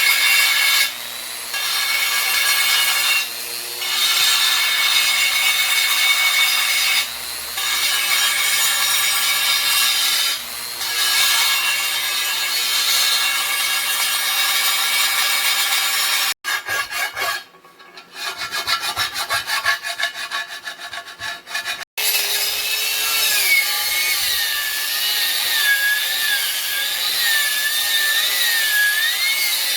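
A tool rasping or rubbing steadily against a surface, dropping out briefly about four times early on, then breaking off abruptly for several seconds midway before the rubbing resumes.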